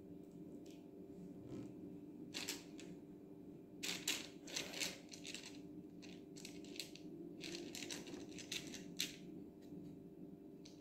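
Small plastic beads clicking and rustling as they are handled and threaded onto a string, in scattered short clusters, over a faint steady hum.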